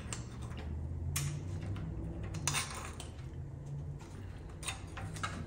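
Hand-lever sheet-metal stretcher at work on a strip of metal: a few sharp metallic clacks, irregularly spaced, as the jaws grip and stretch the strip to bend it into a curve. A low steady hum runs underneath.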